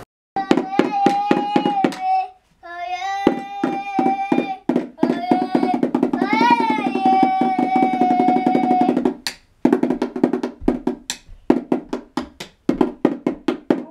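Toy snare drum beaten with sticks in a quick, steady beat, with a child singing long held notes over it for the first nine seconds or so. After that the drum carries on alone.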